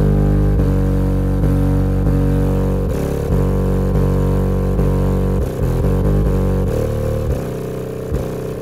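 Kicker Q-Class L7 10-inch subwoofer playing a bass-heavy music track in free air, with no enclosure: loud, deep bass notes that shift in pitch every second or so, with brief dips in the bass around the middle.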